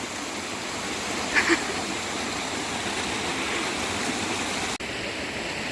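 Steady outdoor rushing noise, with one short faint call or voice about a second and a half in; the noise drops out for an instant near the end.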